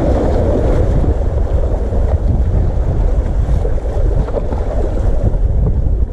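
Seawater surging and sloshing between concrete breakwater tetrapods, with a steady low wind rumble on the microphone.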